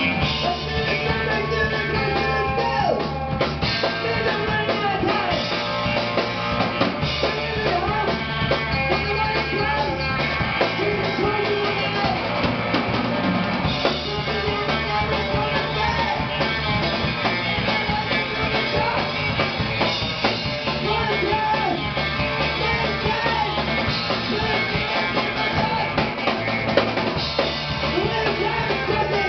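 A rock band playing live: a drum kit, electric guitars and a male voice singing, at a steady level.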